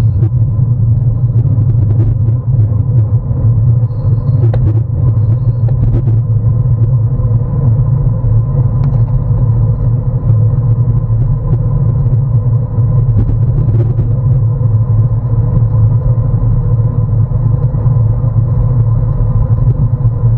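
Constant loud low rumble of wind buffeting a bicycle-mounted camera's microphone while riding along a road, with a faint steady tone above it.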